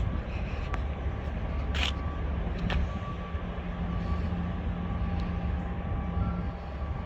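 A car running with a steady low rumble and hum, and a couple of sharp clicks.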